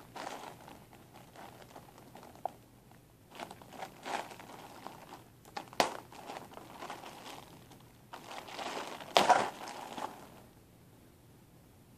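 Clear plastic bag crinkling and crackling as it is handled and opened, in irregular bursts; the loudest crackle comes about nine seconds in, and the crinkling stops about a second later.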